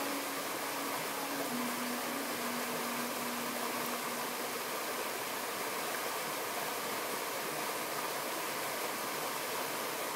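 Stream water rushing steadily over rocks in a small cascade. A faint held low note sounds over it and fades out about four seconds in.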